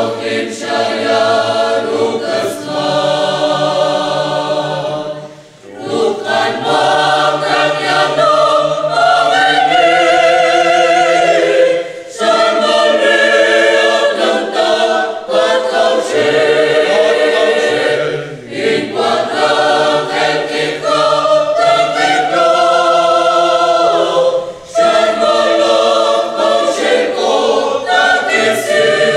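Mixed choir of young men's and women's voices singing a hymn in K'iche' Maya, in phrases of about six seconds with short breaths between them.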